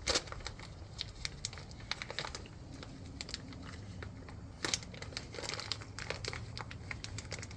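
Packaging of a set of wheel studs crinkling and crackling as it is worked open by hand, in many short irregular crackles.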